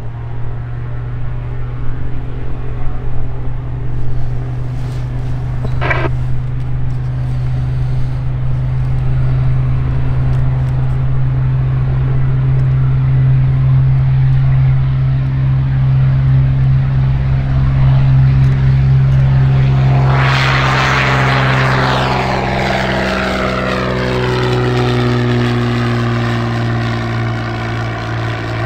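Cessna 182T Skylane's propeller engine running steadily, growing louder and then passing by, with a sweeping, phasing whoosh from about twenty seconds in as it goes past. A brief sharp sound about six seconds in.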